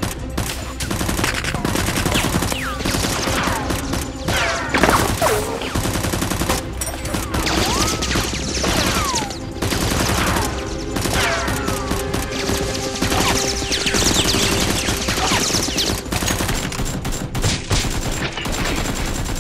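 Rapid automatic gunfire sound effects, long bursts of shots, laid over a staged Nerf blaster fight. Whistles, mostly falling, sound among the shots.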